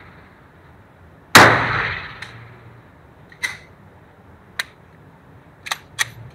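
A single semi-automatic pistol shot about a second and a half in, with a long echoing tail off the walls of the indoor range, followed by several fainter sharp cracks and clicks.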